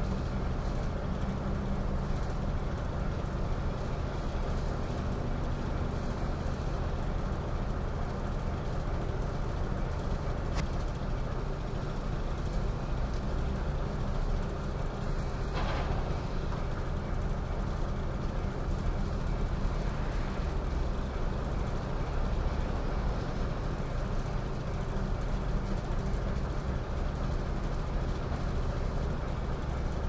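Steady heavy rumble of a train running past a railway level crossing, with one sharp click about ten seconds in.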